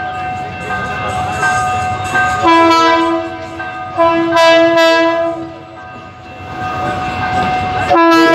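Train horn sounding repeated long, steady blasts as the train approaches: one starting about two and a half seconds in, another right after it, and a third near the end.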